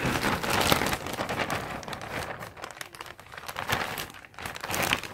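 Thin plastic shopping bag crinkling and rustling as clothes are shaken out of it. It is loudest in the first second or so, then comes in a few softer crinkles.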